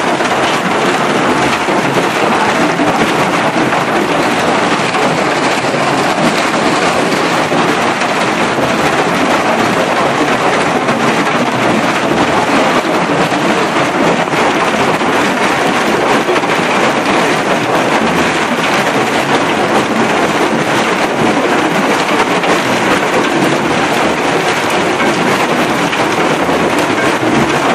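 Heavy hail falling on railway tracks, hailstones hitting the stone ballast and rails in a dense, steady, unbroken clatter with no letup.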